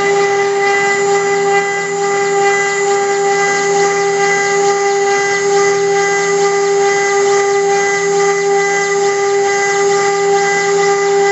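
CNC router spindle running at speed with a steady high-pitched whine, its small cutter engraving a copper plate with a scratchy hiss.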